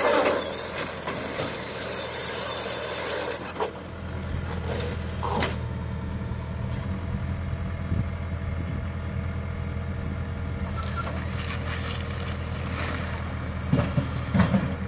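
Tractor and KUHN SW 4014 AutoLoad bale wrapper running while wrapping a round bale in film: a steady low engine hum throughout, a hiss for about the first three seconds that cuts off, a few sharp clicks, and a short cluster of louder knocks near the end.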